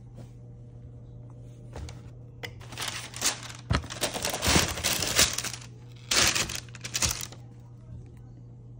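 Tissue paper crinkling and rustling as it is pulled out of a sneaker box, in two bouts: a longer one of nearly three seconds, then a shorter one of about a second. A steady low hum runs underneath.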